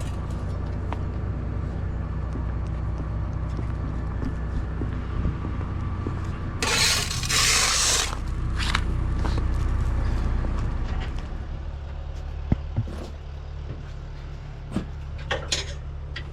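An engine running steadily, with a loud hiss lasting about a second around seven seconds in. The engine sound eases after about eleven seconds, followed by a few sharp clicks.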